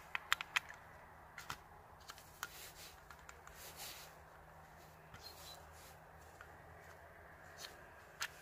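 Bayonet bulb being pressed and twisted into the plastic socket of a BMW F31 tail-light bulb carrier by gloved hands. Three sharp plastic clicks come in the first half second, followed by scattered lighter clicks and handling noise.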